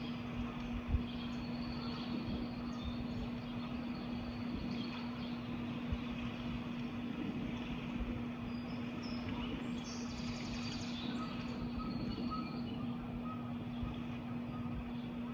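Birds chirping now and then over a steady din of city traffic, with a constant hum underneath.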